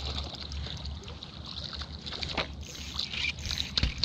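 Wind rumbling on the microphone, with scattered clicks and knocks from handling a spinning rod and reel, and one sharp knock near the end.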